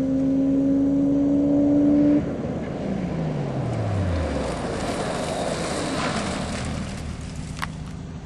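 Lotus Exige engine under hard acceleration, its note rising steadily in pitch, cut off abruptly about two seconds in. A lower engine note then falls steeply in pitch as the car slows, leaving tyre and road noise that fades toward the end.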